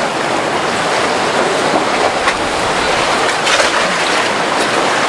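Rough, choppy sea and breaking surf washing steadily, with a few brief splashes standing out.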